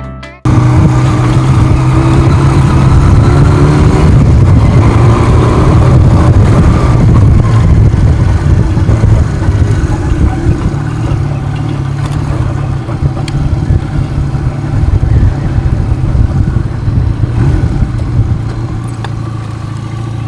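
Motor vehicle on the move: its engine accelerates, the pitch rising over the first several seconds, then runs steadily under a heavy low rumble. It comes in suddenly about half a second in.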